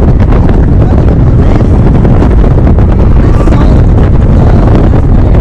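Heavy wind buffeting the microphone: a loud, steady, low rumble throughout.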